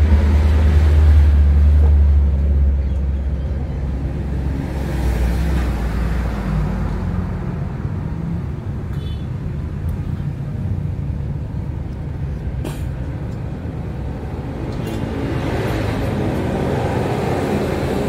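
Road traffic: a heavy vehicle's deep engine rumble passes in the first couple of seconds and fades, engines keep running by, and another vehicle comes up near the end.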